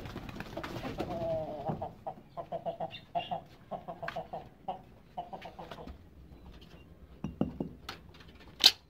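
Chickens clucking and pigeons cooing in short repeated calls that thin out after the first few seconds. Near the end comes a single sharp knock, the loudest sound.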